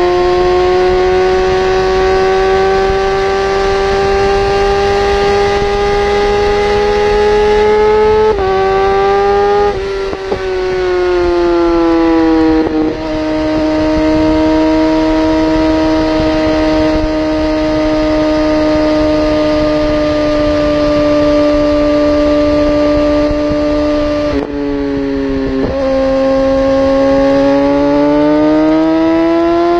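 Suzuki GSX sportbike engine running hard at high revs under full throttle, with steady rushing wind noise. Its pitch holds high and climbs slowly, drops suddenly about eight seconds in and again around ten and thirteen seconds, dips once more about twenty-five seconds in, then climbs steadily near the end.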